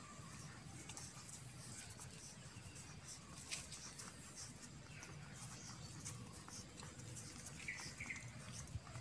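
Puppies suckling from a standing mother dog: faint, scattered wet clicking and smacking sounds, with two short high chirps near the end.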